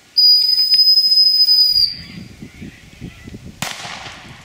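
A handler's dog whistle blown in one long steady high blast of about a second and a half, a command to the springer spaniel. Rustling through brush follows, with a brief sharp crackle near the end.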